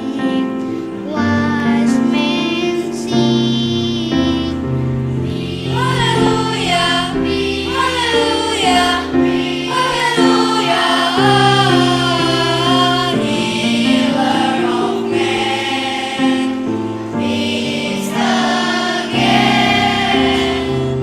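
Children's choir singing a sacred song with instrumental accompaniment, voices holding long wavering notes.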